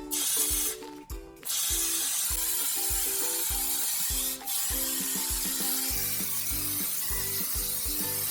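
Hiss of an aerosol can of spray-on wall texture being sprayed onto patched drywall, breaking off briefly about a second in, over background music with a steady beat.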